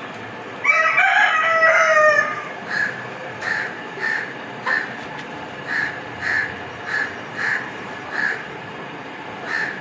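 A rooster, one of a yard flock of Aseel game fowl, crows once, about 1.7 seconds long, starting half a second in. Afterwards a short, high call repeats about every 0.6 seconds.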